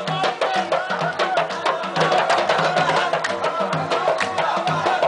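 Music with a fast, steady drum and percussion beat and a melody over it.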